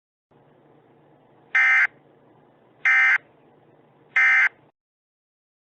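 EAS end-of-message data signal: three short, identical, buzzy digital data bursts about 1.3 seconds apart, over a faint low hum that cuts off after the third burst.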